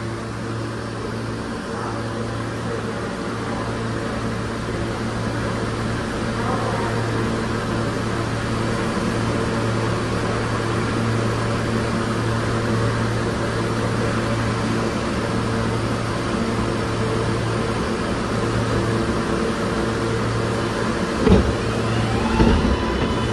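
Bombardier R143 subway car riding on the track: a steady rumble of wheels and rails over a constant air-conditioning hum, slowly getting louder, with two thumps near the end and the electric propulsion's whine rising in pitch at the very end.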